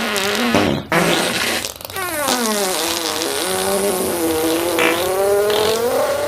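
Fart sound effects: a few short sputtering farts, then, about two seconds in, one long drawn-out pitched fart that falls in pitch, wavers, and rises again near the end.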